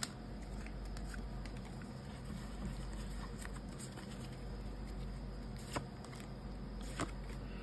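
Faint rustle and soft taps of a stack of Pokémon trading cards being handled and slid from back to front, over a steady low hum, with a couple of light clicks in the last two seconds.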